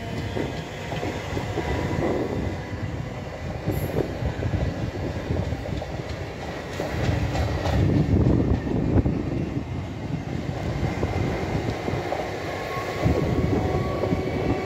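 Coaches of an Indian Railways passenger train running past at speed: a continuous rumble of wheels on rails with irregular clacks over the rail joints. A faint, thin, high wheel squeal sits over the rumble, which swells around the middle and again near the end.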